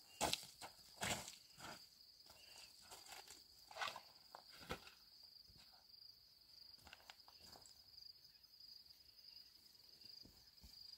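Crickets chirping in a steady high trill, with a few footsteps crunching on gravel in the first half.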